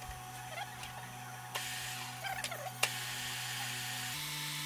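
Boring machine spindle running steadily while its cutter machines away leftover weld in the valve-spring seat of a cylinder head, with brief squeaks from the cut and two sharp clicks midway. About four seconds in, the machine's hum steps up in pitch.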